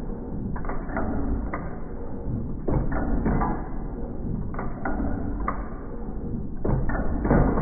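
1909 Domestic 1 hp hit-and-miss engine running: a cluster of sharp firing strokes about every two seconds, coasting on its flywheels in between over a steady low rumble.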